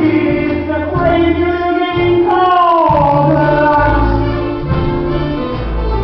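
Musical-theatre song performed live: men's voices singing together, holding and sliding notes over an instrumental accompaniment with a bass line.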